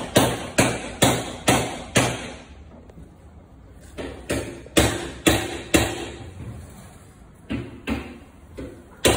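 Hammering: sharp blows about two a second, each with a short ringing tail. They come in a run of several strokes, pause for about two seconds, come in another run, then fall to a few spaced-out strokes near the end.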